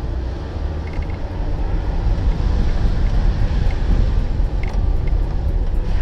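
Off-road 4x4 driving along a muddy dirt trail, heard from a camera on its hood: a steady low rumble of engine, tyres and wind that grows louder about two seconds in.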